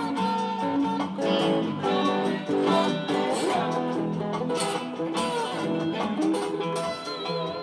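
Blues played on a Taylor acoustic guitar with an overdubbed slide guitar line on a Jackson guitar; the slide notes glide between pitches and waver.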